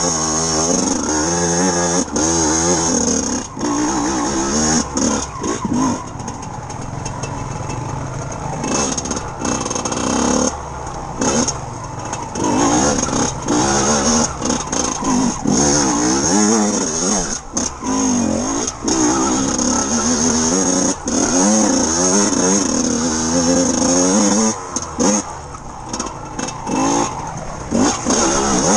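Yamaha enduro motorcycle engine revving up and down with the throttle, heard from on the bike, with frequent sharp knocks and rattles.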